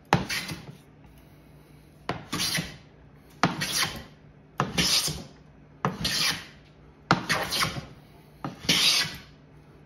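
A 1933 Stanley No. 5 hand plane shaving a yellow pine board: seven strokes about a second apart, each a short hissing cut that starts sharply, taking curly shavings with the grain.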